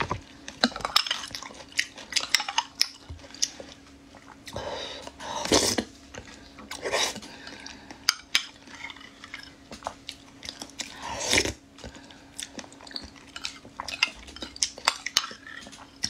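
A metal spoon clinks and scrapes again and again against a glass mug while someone scoops up and eats a soft fruit and chia seed dessert. A few short slurps and some chewing come in between the spoon clicks.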